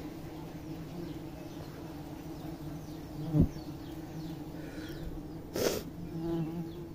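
Steady buzzing hum of a dense swarm of honey bees massed on a wild honeycomb. A sharp thump about halfway through and a short rustling burst near the end.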